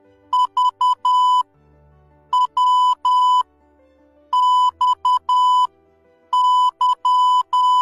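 Morse code sent as beeps of one steady, high pitch, in short dits and long dahs. They fall in four letter groups about two seconds apart, reading dot-dot-dot-dash, dot-dash-dash, dash-dot-dot-dash and dash-dot-dash-dash: V, W, X and Y of the alphabet. Faint background music plays underneath.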